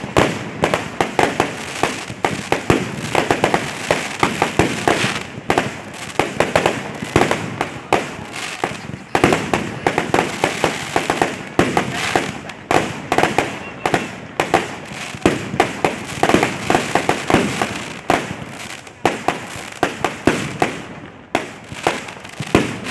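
Fireworks and firecrackers going off in a rapid, irregular string of sharp bangs, several a second and overlapping, with a short lull near the end.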